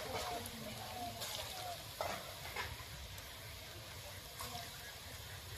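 Urad dal fritters frying in hot oil in a kadai, a faint steady sizzle, with a few short ticks and splashes as more batter is dropped in by hand.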